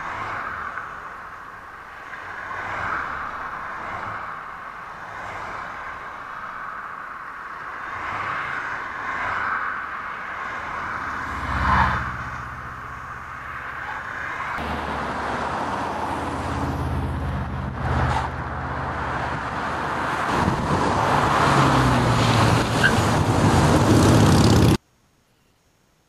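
Fast, heavy traffic on a multi-lane highway: cars passing one after another, with one loud close pass about halfway through. The noise builds over the second half, with engine sound in it, and then cuts off suddenly shortly before the end.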